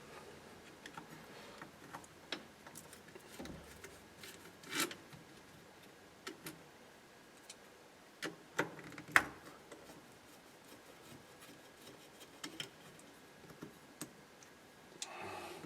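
Scattered light clicks and taps of small metal parts and hand tools being handled while a steering column is taken apart, the sharpest click about nine seconds in.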